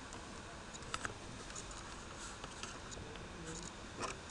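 A few faint computer keyboard key presses: two quick clicks about a second in and one more near the end, over a steady low hiss.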